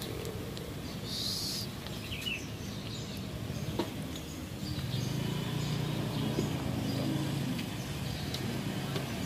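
Hot oil sizzling and crackling in a wok as a bunch of sempolan skewers fries, with outdoor street ambience. A bird chirps a couple of times in the first half, and a low vehicle engine hum comes in about halfway.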